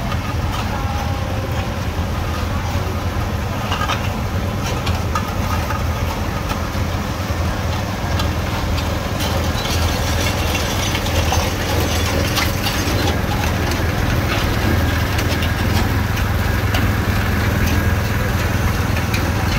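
Antique tractor engine running with a steady low rumble, getting a little louder about halfway through, with scattered faint clicks.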